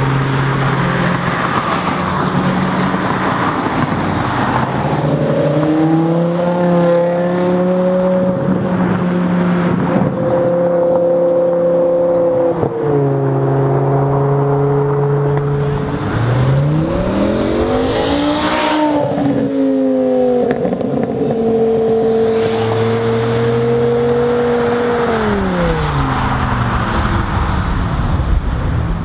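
Loud sports-car engines accelerating hard through the gears and driving past, their pitch climbing and then dropping at each gear change. About two-thirds of the way through, one car sweeps past with its pitch rising and then falling.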